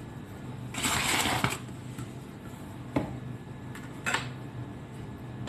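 A short rustling noise about a second in, then two sharp knocks about a second apart, over a low steady hum.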